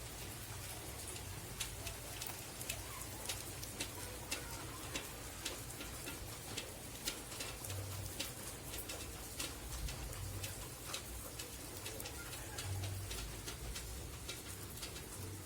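Rain falling steadily, with large drops tapping sharply and irregularly on a nearby surface.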